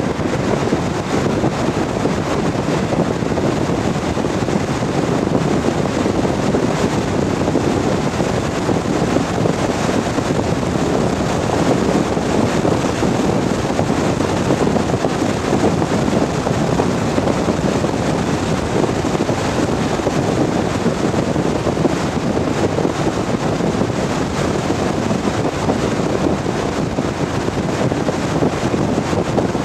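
Steady in-cabin drone of a Lotus Elan M100 at speed: four-cylinder engine noise blended with heavy wind and road noise, holding an even level.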